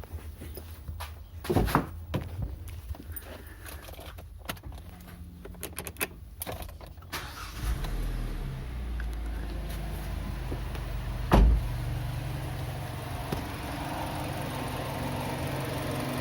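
A few clicks and knocks, then the freshly rebuilt Kia Sportage G4KD 2.0-litre four-cylinder engine starts about eight seconds in and settles into a steady idle, with one loud thump a few seconds after it catches. It runs evenly with no piston knock, the fault the rebuild (rebored block, new oversize pistons) was meant to cure.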